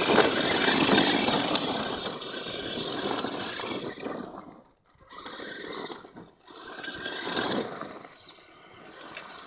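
Electric 1/10-scale RC trucks running over gravel: motor whine and tyres crunching on loose stones. It is loudest as a truck passes close at the start, drops out briefly twice past the middle, and swells again near the end.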